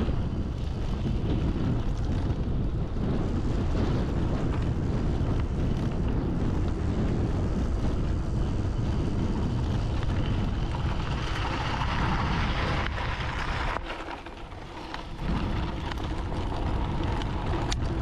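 Steady wind rush on the camera microphone with tyre rumble as a full-suspension e-bike rides along a rutted dirt track. The noise dips briefly about fourteen seconds in.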